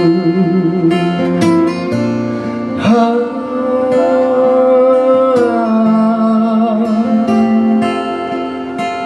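Acoustic guitars strumming and picking a song, with a voice holding one long wavering note from about three seconds in.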